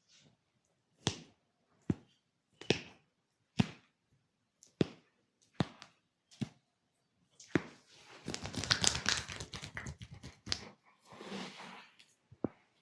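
Sharp hand slaps on the body, about one a second, then a fast flurry of chopping massage strokes lasting a few seconds, the loudest part, with a few single slaps near the end.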